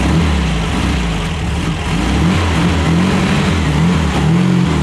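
A freshly rebuilt 1968 Volkswagen Beetle's air-cooled flat-four engine running as the car drives off, its pitch rising and falling several times with the throttle.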